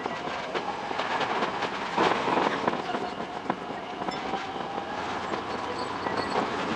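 Tokyo Metro 10000 series electric train running, played back at six times speed: a fast, dense clatter of wheels over the rails with a faint whine that dips and rises again.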